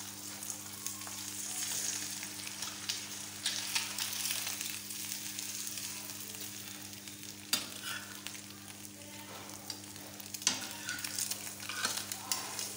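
Egg and bread sizzling in ghee in a frying pan, with a few sharp clicks of metal tongs against the pan as the bread is turned, from about seven and a half seconds in. A steady low hum runs underneath.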